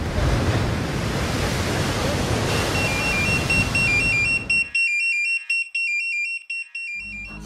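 Sea surf washing, then about two and a half seconds in an electronic pager alert starts beeping, stepping rapidly between two close high pitches. The surf cuts off suddenly a couple of seconds later, leaving the pager beeping alone.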